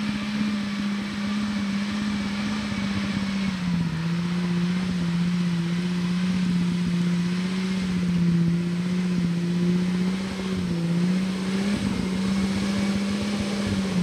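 A 4x4's engine running hard under load on a steep off-road climb. Its pitch is held steady, dips slightly about four seconds in and comes back up near the end.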